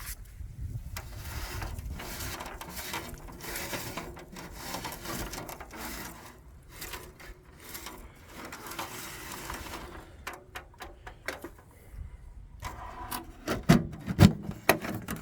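A street lamp fixture's bowl being wiped clean, a rough rubbing that keeps up for about ten seconds. Then a run of sharp clicks and a few louder knocks near the end.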